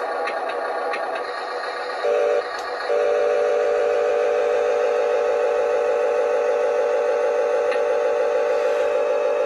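Electric motor of a Huina remote-control wheel loader whining steadily as it raises its loaded bucket: a short burst about two seconds in, then continuous from about three seconds on. A few light clicks of plastic pellets near the start.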